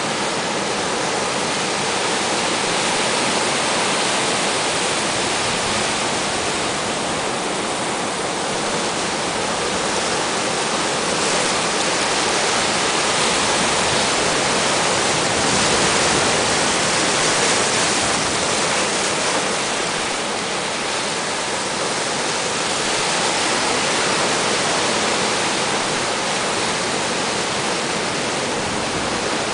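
Heavy storm surf from a hurricane swell breaking and washing onshore: a continuous rushing roar of whitewater that swells a little and eases again around the middle.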